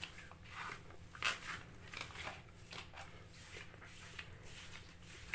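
Hands kneading and rubbing a soft buttery cookie dough: faint, soft swishing strokes repeating about twice a second.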